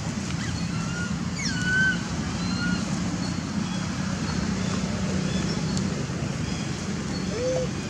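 Steady low rumble and hiss of outdoor background noise, with a few short, high, squeaky calls, the clearest about one and a half to two seconds in and a lower one near the end.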